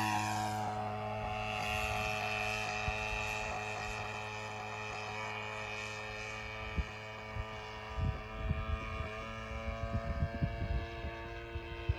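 Two-stroke DLE gas engine of a giant-scale RC airplane in flight, with a propeller drone. The pitch drops at the start as the plane passes, then the engine runs at a steady pitch while slowly fading into the distance. From about two-thirds of the way in, wind buffets the microphone.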